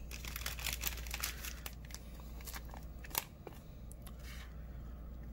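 Trading cards being handled: a quick run of light rustles and clicks over the first two seconds, then sparser ticks, with one sharper click about three seconds in.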